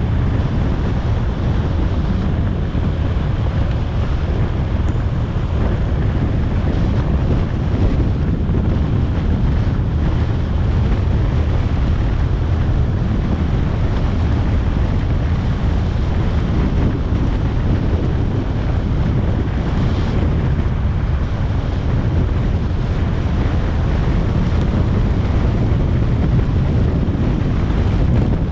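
Wind rushing steadily over the microphone of a camera on a moving motorcycle, over a low, steady rumble from the bike and the road.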